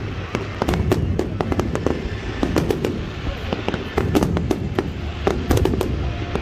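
Fireworks display: aerial shells bursting in a rapid, irregular run of overlapping bangs and crackles, several a second, over a low rumble.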